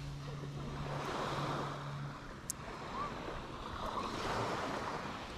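Small waves washing onto a sandy beach, with a low steady hum that stops about two seconds in.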